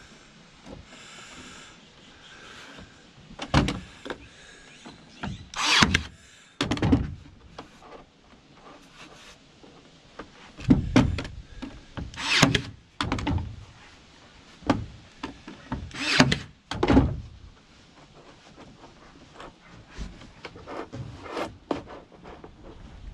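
Ryobi 18V One+ AirStrike cordless brad nailer firing 18-gauge brad nails into wood: a series of sharp shots, irregularly spaced a second to several seconds apart, mixed with lighter knocks of wood being handled.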